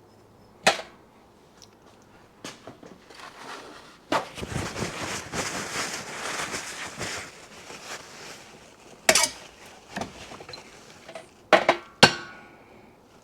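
Tools and metal motorcycle fork parts being handled on a workbench. There are several sharp clanks and knocks, the loudest about half a second in and two close together near the end, with a few seconds of rustling and scraping in the middle.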